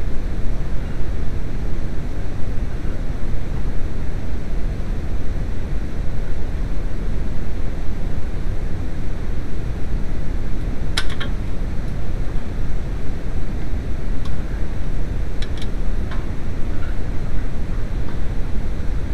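A steady low rumbling noise, with a few sharp clicks from hand tools on the engine: a pair about eleven seconds in and several more around fifteen to sixteen seconds in.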